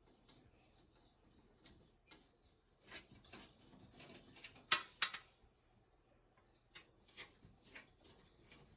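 Small clicks and rustles of computer parts being handled during a PC build, with two sharp clicks in quick succession about halfway through.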